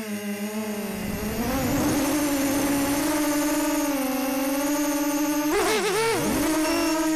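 The brushless motors and propellers of a Storm SD250 FPV quadcopter whine as heard from the onboard camera. The pitch dips low just after the start, climbs back and holds steady, then swoops sharply down and back up around six seconds in.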